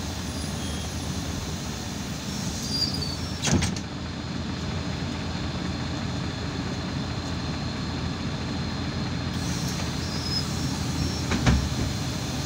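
Inside an Irisbus Citelis 12 m city bus: steady engine and road noise while riding, with two sharp knocks, one about three and a half seconds in and one near the end, and faint squeaks of the body and fittings.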